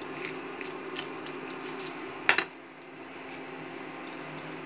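Wooden spatula stirring sticky sauced Manchurian balls in a non-stick pan, with light clicks and scrapes against the pan and one sharp knock a little over two seconds in.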